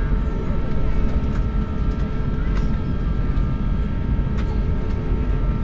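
Cabin noise of an Airbus A350 taxiing, its Rolls-Royce Trent XWB engines at taxi idle: a steady low rumble with a thin, steady whine.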